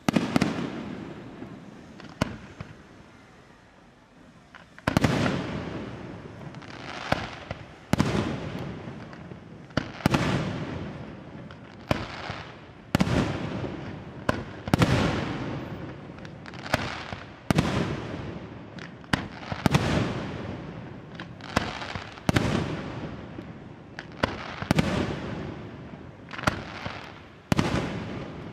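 Aerial firework shells bursting in quick succession, each sharp bang followed by a long fading rumble. One burst comes right at the start, then a few seconds of lull, then a steady string of bursts about one a second.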